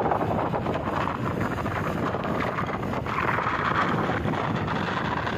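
Wind buffeting the microphone of a moving vehicle, with road and engine noise underneath; it swells a little about three seconds in.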